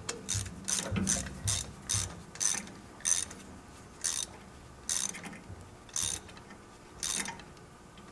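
Hand ratchet with socket clicking in repeated short strokes as it screws a brass Schrader service port fitting into the refrigerator compressor. The strokes come quickly at first, then slow to about one a second as the fitting tightens.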